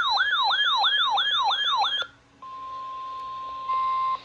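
Electronic yelping siren, its pitch sweeping up and down about four times a second, stops abruptly about two seconds in. After a short gap a steady single-pitch alert tone comes in, faint at first and then louder for its last half second: the 1050 Hz NOAA Weather Radio warning alarm tone that comes before a warning message.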